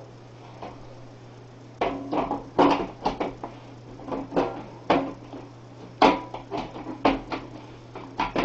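Computer case being closed up: a faint steady hum, then from about two seconds in a run of irregular knocks, clicks and clatters as the case is handled and fitted shut.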